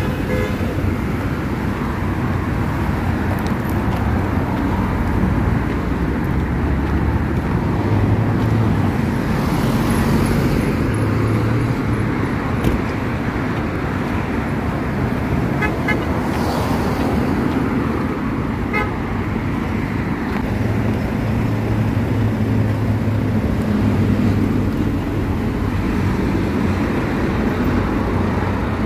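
Road traffic: passing cars make a steady rumble of engines and tyres, with a few short horn toots about halfway through.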